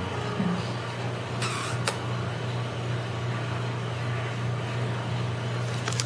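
A Meyer's parrot gives one short high call about one and a half seconds in, over a steady low hum.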